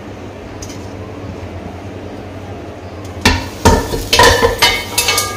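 A metal wok and ladle clanking: a cluster of sharp knocks with short metallic ringing starts about three seconds in and lasts about two seconds, after a steady low hum.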